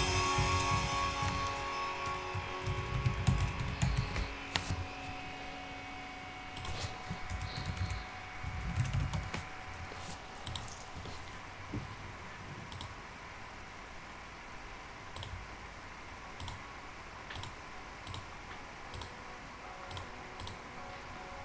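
Computer keyboard being typed on in short, irregular clicks, with background music fading out over the first few seconds.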